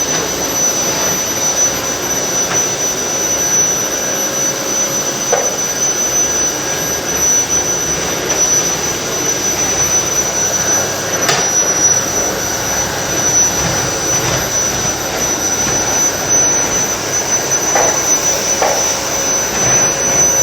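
Vacuum cleaner running steadily: a constant rush of air with a high, thin motor whine, and a brief knock about eleven seconds in.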